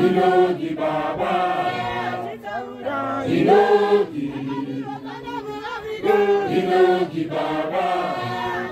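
A congregation of many voices singing a chant-like hymn together, unaccompanied, in repeated phrases that swell and fall.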